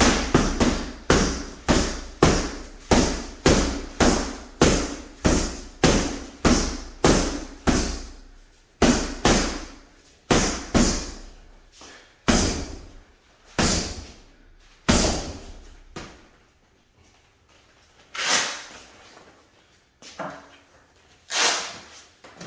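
Repeated punches landing on a heavy boxing bag: about two thudding blows a second for roughly eight seconds, then slower, scattered strikes that grow weaker, with a few harder ones near the end.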